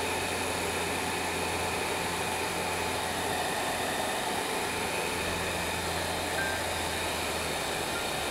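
Electric heat gun running, a steady blowing whoosh with a constant low hum.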